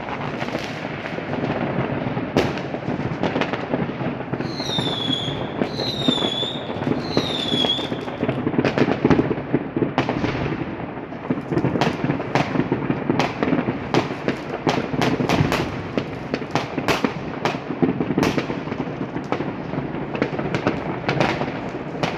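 New Year's fireworks and firecrackers going off continuously: dense crackling with many sharp bangs, which come thicker in the second half. Three short, high, slightly falling whistles sound between about four and eight seconds in.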